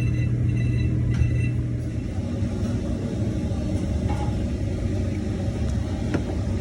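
Refrigeration unit of a Kairak refrigerated table-top running with a steady low mechanical hum and rumble. The strong hum drops away about two seconds in, leaving a lower rumble.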